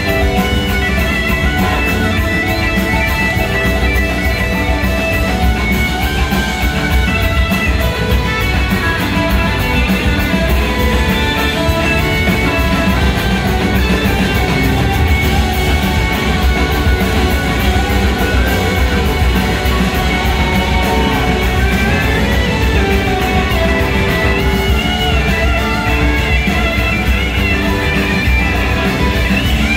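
Live rock band playing a song, led by electric guitar over bass, drums and keyboards, heard from among the audience.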